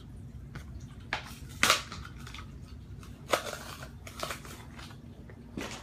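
A Hot Wheels blister pack being opened: the plastic bubble and card crackle in a handful of sharp snaps with rustling between them, the loudest about a second and a half in.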